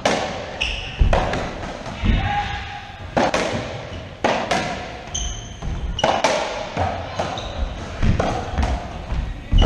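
Racquetball rally: sharp cracks of the ball off racquets and the walls about once a second, echoing in the enclosed court, with short squeaks of shoes on the hardwood floor between hits.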